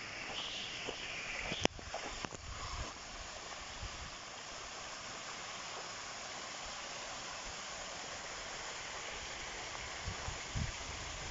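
Garden fountain spouts pouring into a stone pool: a steady splashing rush of falling water. A single sharp click comes a little under two seconds in.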